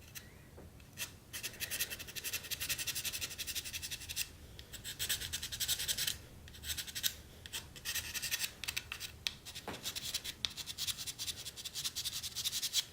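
Needle file rasping quickly back and forth on a plastic statue peg, in several bouts of fast strokes with short pauses between them, filing the peg down because it is too thick to fit its base.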